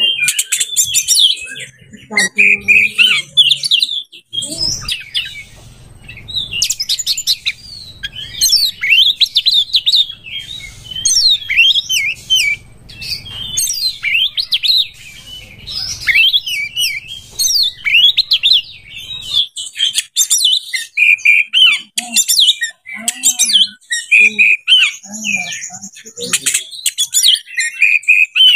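Oriental magpie-robin (kacer) in breeding condition singing a fast, varied, non-stop stream of chirps, whistles and trills. A low rumble sits under the song from about five to twenty seconds in.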